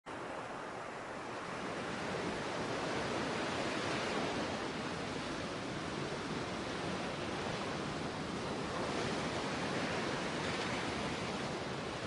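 Ocean surf: waves breaking and washing up a sandy beach in a steady rush of foam that swells and eases gently.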